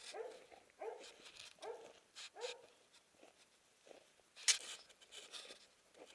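Large mountain dog making four short vocal calls, about one every 0.7 s, followed a couple of seconds later by one sharp click, the loudest sound, with faint scattered ticks between.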